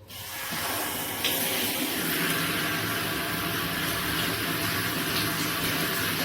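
Water spraying steadily from an AquaHomeGroup filtered shower head, building up over about the first second.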